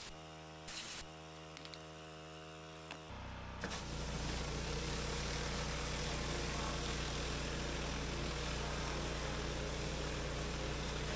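Pressure washer running steadily, a quieter hum with a few light clicks at first. About three to four seconds in it turns into a louder, steady rush of a rotary surface cleaner spraying across wet sandstone paving over the machine's low drone.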